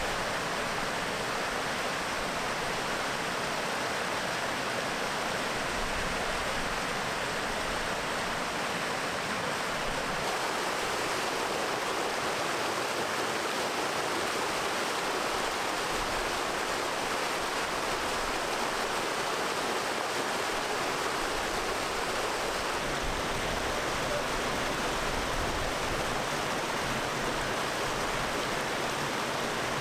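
Mountain stream rushing and splashing over rocks and small waterfalls, a steady even roar of water.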